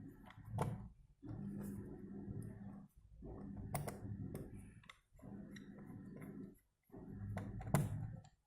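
Light clicks and taps of small hard objects over a steady low hum; the hum cuts in and out in stretches of about a second and a half, with a few sharper clicks.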